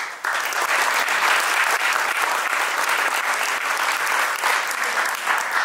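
An audience applauding: dense clapping that starts sharply just after the opening and keeps up steadily.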